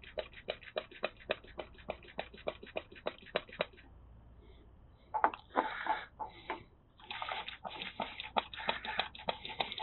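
Hand-held vacuum brake-bleeder pump squeezed rapidly, clicking about four times a second for several seconds. After a pause come hissing, sloshing bursts as air and brake fluid are drawn through the bleeder hose. The reservoir is not filling, which the owner takes for a blockage in the rear brake hose.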